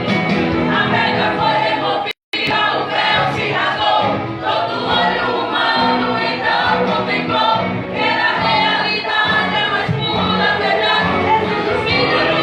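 A song sung by a group of voices over instrumental backing; the sound cuts out for a fraction of a second about two seconds in.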